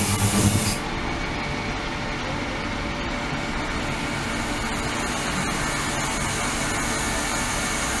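Steady hissing, spray-like noise of water in an ultrasonic cleaning tank running with a degassed microbubble liquid-circulation system. A louder humming sound cuts off under a second in.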